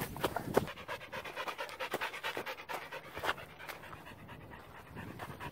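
A husky panting quickly with its mouth open, out of breath from running, with a few footsteps on the dirt trail near the start.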